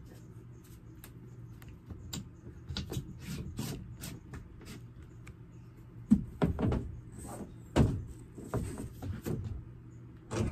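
Irregular knocks, scrapes and thumps of a thin beadboard sheet being handled and pressed up against the wooden ceiling framing, the loudest thumps about six and eight seconds in, over a faint steady low hum.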